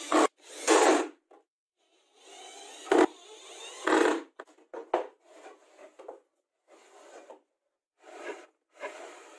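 Cordless drill-driver driving screws into laminated chipboard in short bursts, with a sharp knock about three seconds in.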